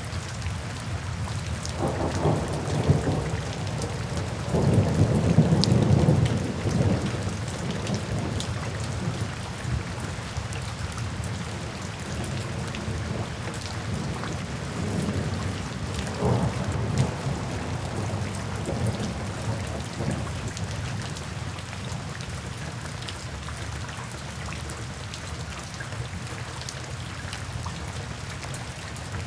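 Steady rain falling, with rolls of thunder rumbling through it. The loudest rumble comes about five seconds in, and weaker rumbles follow near the middle.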